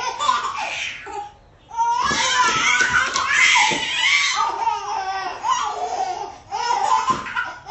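Babies laughing and squealing, with a short pause about a second and a half in.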